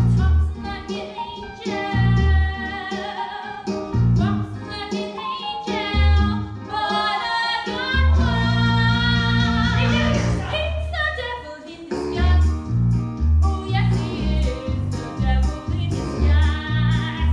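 An upbeat song with singing over a heavy, regular bass beat.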